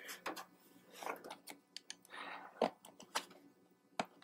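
Small metal clicks and brief rustling as square terminal nuts are dropped into a motorcycle battery's terminals and worked into place by hand, with two sharper ticks, one a little past halfway and one near the end.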